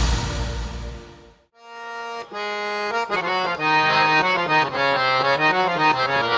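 Noisy live crowd sound fades out over the first second and a half. After a brief silence, instrumental music begins: an accordion-like reed instrument playing a melody over held chords.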